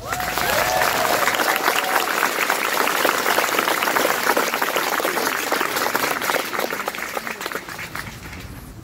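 Crowd applauding. There is a brief voice cheering at the start, and the clapping fades out near the end.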